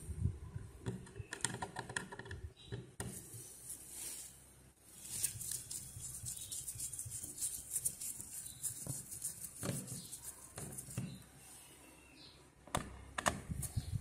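Phillips screwdriver backing screws out of a Dell Inspiron laptop's plastic bottom panel: scattered small clicks and light taps, with a stretch of rapid fine ticking in the middle.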